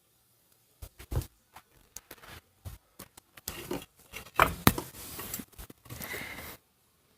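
Handling noises close to the microphone: a string of sharp clicks and knocks, then a few seconds of rustling and scraping that stop shortly before the end.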